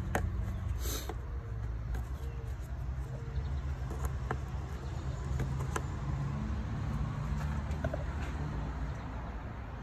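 A few light plastic clicks and handling noises as a wiring harness connector is pushed back onto its socket on the engine, over a steady low hum.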